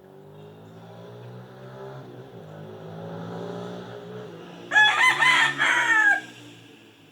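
A rooster crows once, about a second and a half long and ending on a falling note, over a low engine hum that grows slowly louder beforehand.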